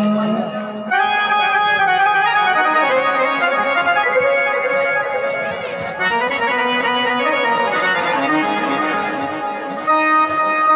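Instrumental folk music: a reed instrument with an accordion-like tone playing a melody of held notes, with no singing.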